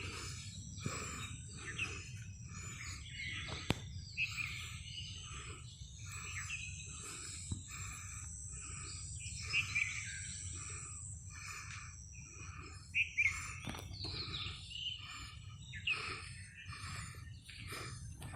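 Birds chirping at dawn, with many short calls repeating throughout, over a steady high-pitched insect drone.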